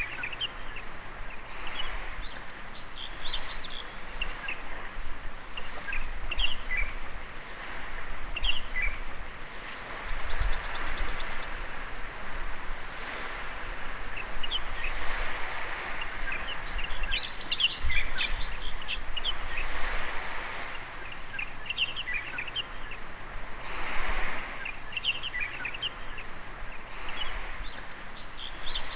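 Small waves washing in at the water's edge, swelling and falling back every few seconds, with birds chirping over them. About ten seconds in there is a quick high trill.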